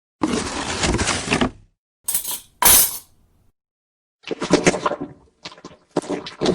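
A cabinet drawer sliding, then a metal fork dropped, hitting with two sharp clinks, followed about a second later by a run of short irregular clattering noises.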